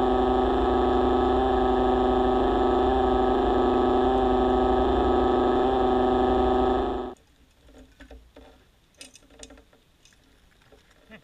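A motor heard underwater runs with a steady whine over a low pulsing hum, then cuts off suddenly about seven seconds in. Faint scattered clicks and ticks follow.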